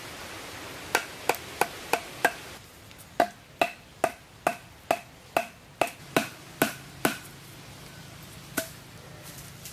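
Wood striking wood: a run of about fifteen sharp knocks, two to three a second, then a single knock near the end. This is the sound of wooden poles being knocked into place while a stick frame is built.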